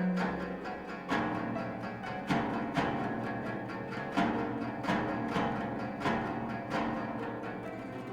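Koto music: a series of plucked notes, each struck sharply and ringing out as it fades.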